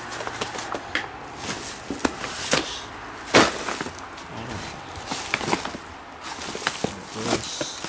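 Paper bags crinkling and firework boxes and tubes bumping and knocking together as they are handled and rummaged through, with one sharp knock about three and a half seconds in.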